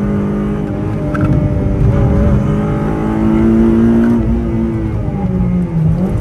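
Honda Civic Type R FD2's 2.0-litre four-cylinder VTEC engine under hard acceleration, heard from inside the cabin: the revs climb for a couple of seconds, fall sharply a little past halfway, then stay lower with a brief dip and pick-up near the end.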